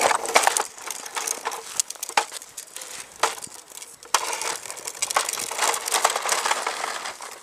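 Plastic wheels of a Fisher-Price push walker rolling over a paved path: a continuous gritty, crackling rattle full of small clicks.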